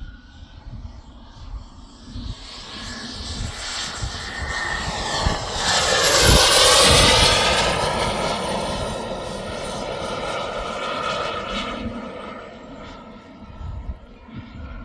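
Turbine engine of a radio-controlled model jet making a pass: a high, thin whine and rushing jet noise build to a peak about six to seven seconds in, the whine drops in pitch as the jet goes by, and the sound then fades away.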